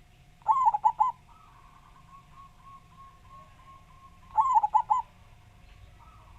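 Zebra dove (perkutut) cooing. Two loud phrases of about four quick notes each come about four seconds apart, with a series of softer, fainter coos between them. A faint steady hum runs underneath.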